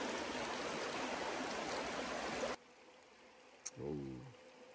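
A stream rushing steadily, cut off abruptly about two and a half seconds in. After that it is much quieter, with a single click and a brief hum of a voice near the end.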